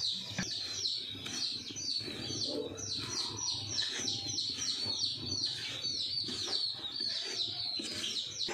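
Small birds chirping: a quick, unbroken run of short, high, falling chirps, several a second.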